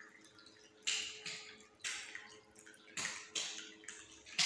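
Half a dozen irregular scuffs and taps as someone moves about, each short and fading quickly, ending in a sharper click near the end, over a faint steady hum.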